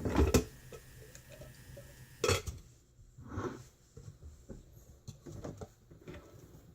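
Dishes and utensils being handled: a few sharp knocks and clinks, the loudest just after the start and another about two seconds in, then softer clicks.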